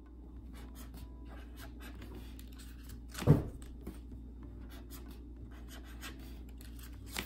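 Pen writing on small paper slips: a run of short, light scratchy strokes as numbers are written. One sharp knock about three seconds in is the loudest sound, and a low steady hum runs underneath.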